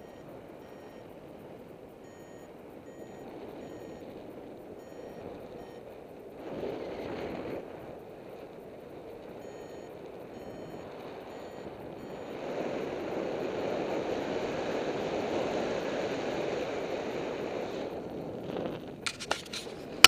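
Air rushing over the microphone in paraglider flight, surging briefly and then growing stronger about halfway through. Through the first part, a flight variometer gives short repeated high beeps, its signal that the glider is climbing in lift. A few sharp knocks come near the end.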